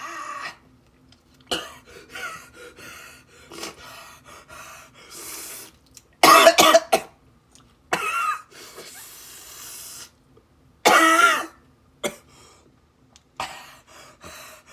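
A man coughing and breathing hard in short bursts, loudest about six and eleven seconds in, as very spicy shrimp burns his mouth and nose.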